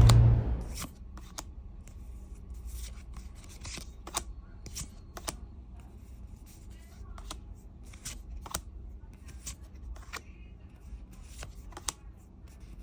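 Trading cards and their packaging being handled: scattered light clicks, crinkles and rustles at an irregular pace.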